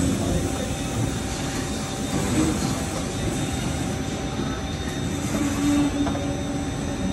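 Steady drone of injection molding machinery on a plant floor, with thin steady high whines over a low rumble. A brief extra hum joins in about five and a half seconds in.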